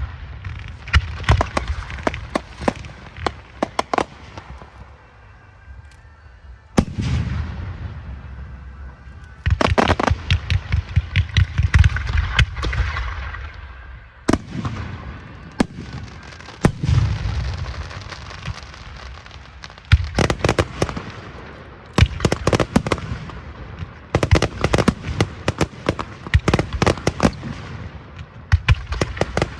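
Fireworks going off in rapid volleys of sharp bangs and crackles, each new volley opening with a deep boom, with short lulls between volleys.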